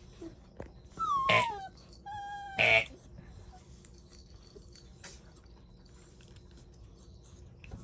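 A puppy whining twice, the first whine sliding down in pitch and the second held on one note, then faint rustling. The puppy is complaining at being pestered by a littermate while trying to sleep.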